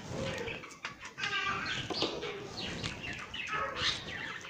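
Birds chirping and clucking in many short, repeated calls.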